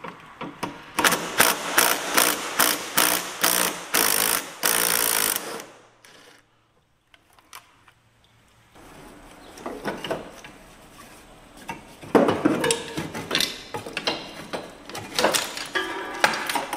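Cordless impact driver hammering on a bolt for about four seconds, its blows growing denser and louder before it stops. Later come scattered metal knocks and clicks of parts and tools being handled.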